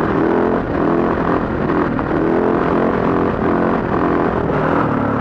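Husaberg enduro dirt bike engine running under way, its pitch rising and falling repeatedly as the throttle opens and closes.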